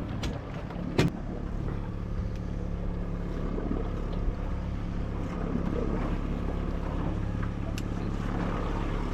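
Boat's outboard motor running steadily at trolling speed, with a single sharp knock about a second in.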